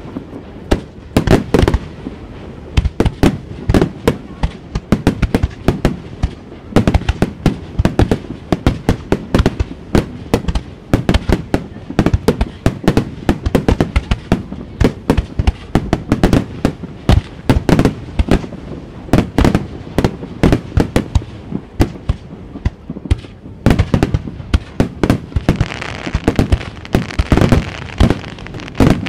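Aerial firework shells bursting in a rapid barrage, several sharp booms a second, with a denser hiss between the booms near the end.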